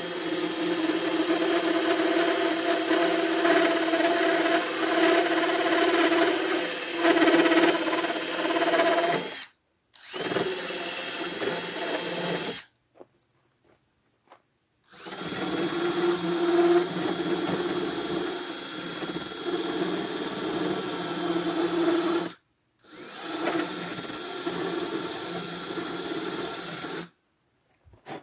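Cordless drill spinning a carbide burr, grinding away the fibreglass inner flange of a targa roof panel to open out the locating-peg slot. It runs steadily with a faint high whine, in four runs separated by short breaks.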